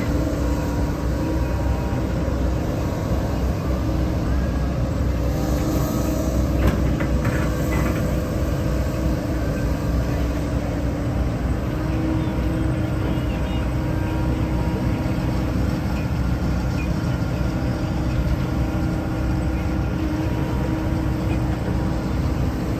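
Diesel engine and hydraulics of a John Deere 75 P-Tier mid-size excavator running steadily under load as it digs and dumps soil, with a few short knocks about six to eight seconds in.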